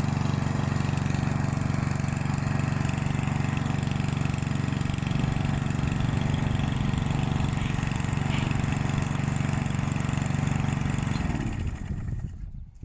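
Yardworks push mower's 173cc single-cylinder engine running steadily, then shut off about 11 seconds in, winding down to a stop.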